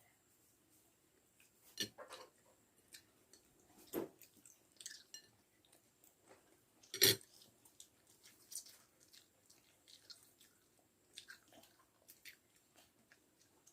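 Someone chewing and biting goat satay, with scattered short clicks and knocks; the loudest knock comes about seven seconds in.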